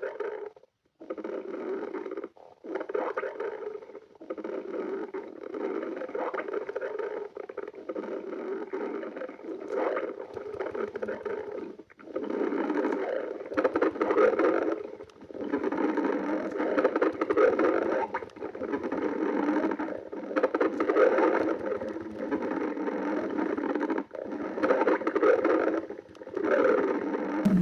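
Stomach growling: long, gurgling rumbles that swell and fade in waves, broken by a few short pauses in the first seconds and getting louder in the second half.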